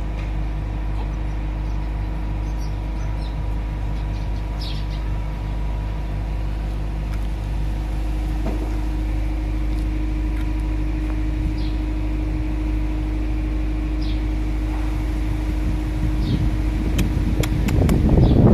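A machine running with a steady low drone and a constant hum. A few faint bird chirps come through, and a rough crackling noise rises near the end.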